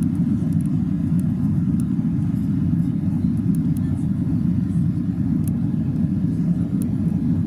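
Airbus A320 cabin noise on approach: the steady low rumble of airflow and engines heard from a seat over the wing. A few faint ticks come and go above it.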